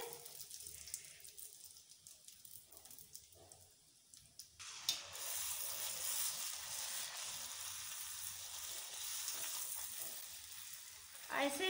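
Puris for pani puri deep-frying in hot refined oil in a steel kadhai, the oil sizzling. The sizzle is soft at first, turns suddenly much louder about four and a half seconds in, and then carries on as a steady fizz.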